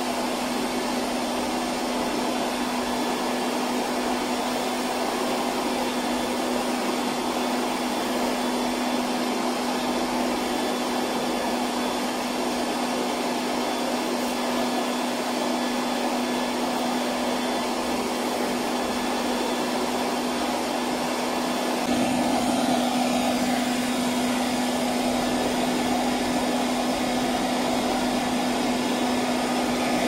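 Silvercrest robot vacuum cleaner running steadily as it sweeps a laminate floor: a constant motor hum with a low steady whine. It gets a little louder about two-thirds of the way through.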